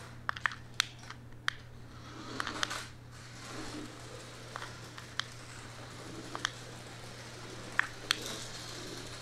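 Faint whirr of a small toy remote-control monster truck driving on a hardwood floor, swelling now and then, with scattered sharp plastic clicks and taps.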